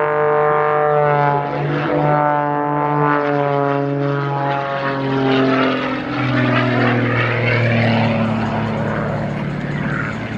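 Aerobatic propeller plane's piston engine and propeller running hard, the pitch sliding down over several seconds midway through and then holding lower.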